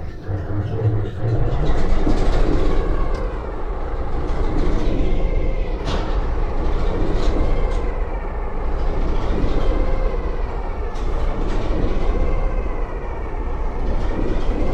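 Diesel train's engine running close by, a steady low rumble that comes up about a second and a half in, with a couple of sharp clicks.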